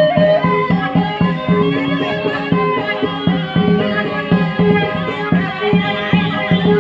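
Sasak klentang ensemble playing traditional music: struck bamboo instruments sounding a busy run of quick notes over a steady low note.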